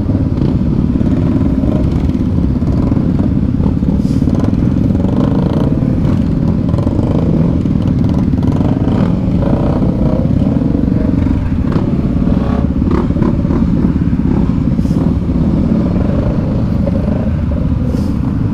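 Several gas dirt bikes running close by at low speed, their engines idling and revving lightly up and down as they creep along in a jam. A few sharp clicks or clatters are heard over them.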